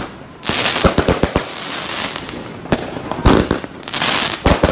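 Fireworks going off: waves of dense crackling hiss with several sharp bangs among them.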